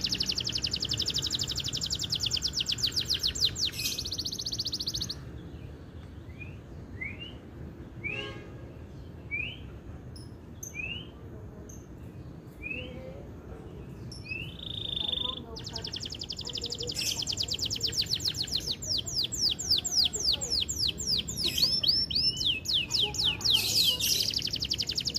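Male canary in full song: long, fast rolling trills. In the middle they give way to a string of single rising chirps and a short steady whistle, then the rapid trills start again.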